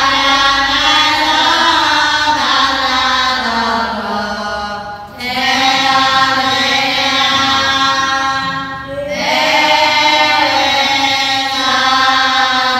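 A group of young Buddhist nuns chanting in unison, in long, steadily held phrases with brief pauses for breath about five and nine seconds in.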